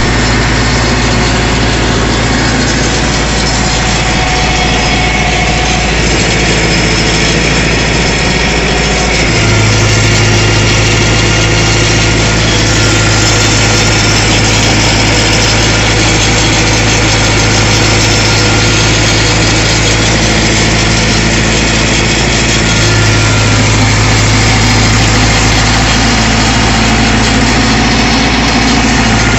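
Small tractor's diesel engine running steadily while it turns the PTO shaft driving a rice and wheat thresher. Its low hum grows stronger and slightly louder about nine seconds in, and again around twenty-three seconds.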